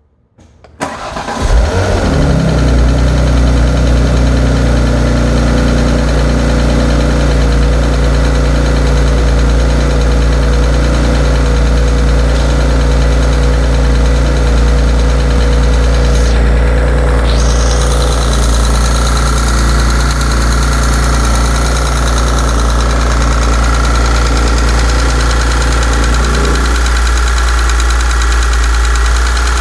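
Porsche Panamera 4S engine starting about a second in, then idling steadily, its note shifting slightly near the end. The owner asks whether a ticking sound from the engine is a problem.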